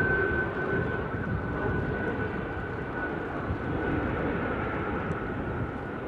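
Antonov An-225 Mriya's six turbofan engines running during its touchdown and landing roll: a steady jet rumble with a high whine that slowly drops a little in pitch, fading slightly toward the end.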